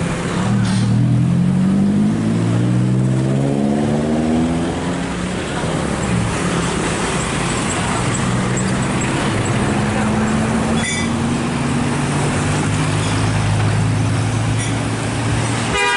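Heavy diesel intercity bus engines passing on the road. One engine climbs steadily in pitch as it accelerates over the first few seconds, then a steady low engine drone holds. There is a short sharp blip about eleven seconds in.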